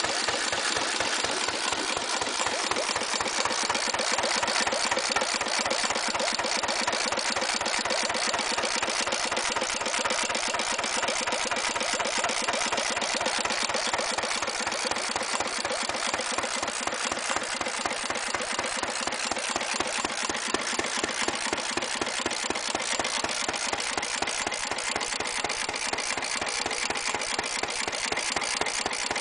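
Restored circa-1924 Lion D Type single-cylinder stationary petrol engine running steadily under its throttle governor, with an even, rapid beat.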